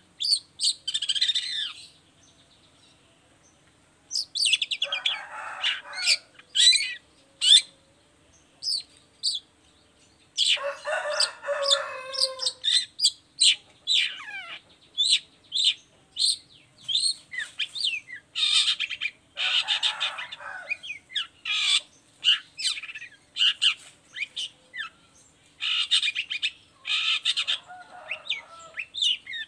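Long-tailed shrike (cendet) singing in bursts of rapid, varied chirping and whistled notes, mixed with noisier chattering phrases, with short pauses between bursts and a longer quiet gap about two seconds in.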